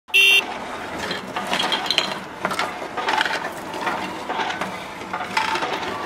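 Plastic Duplo construction toys being moved by hand, making scattered clicks, clacks and light rattles. A brief loud tone sounds at the very start.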